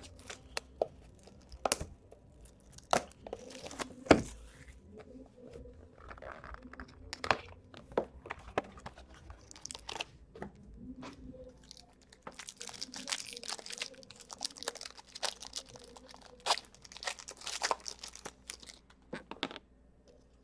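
A sealed hockey card box being opened by hand: wrapping torn and crinkled, with scattered clicks and taps of cardboard and cards being handled. The crinkling is densest in the latter half.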